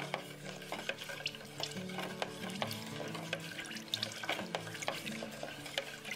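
Wooden paint sticks stirring thick paint in a plastic bucket, with frequent irregular clicks and taps as the sticks knock and scrape against the bucket.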